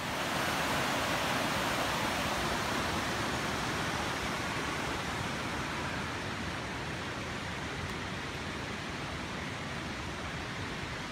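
Steady, even rush of a mountain river running over rocks.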